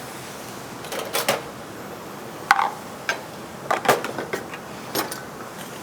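Scattered clinks and knocks of kitchen utensils against a pan, about eight sharp taps, one with a short metallic ring, over a steady hiss.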